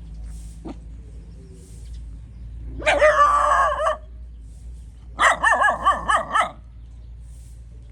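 A dog barking: one long drawn-out call, then a quick run of about six barks.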